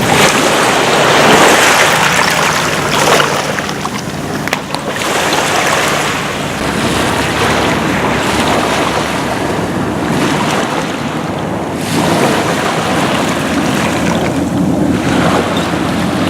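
Waves washing up onto a beach littered with glass and debris, the surf swelling loudly in the first seconds and again near the end, with wind buffeting the microphone.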